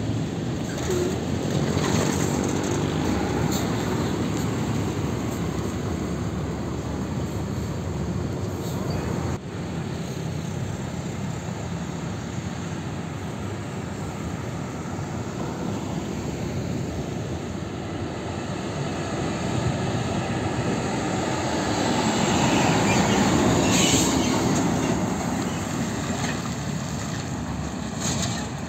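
Heavy diesel trucks and cars passing close on a highway: a steady run of engine and tyre noise that swells as a truck goes by about two seconds in and again, louder, a little before the end.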